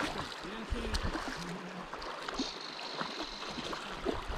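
River water gurgling and lapping against the gravel bank, with small splashes and gurgles throughout.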